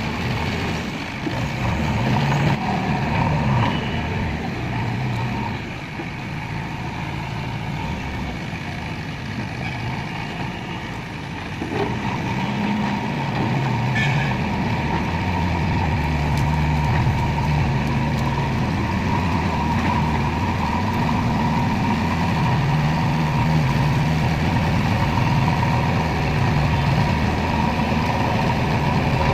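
JCB backhoe loader's diesel engine running under changing load as it works, its pitch and level rising and falling, and running louder from about twelve seconds in.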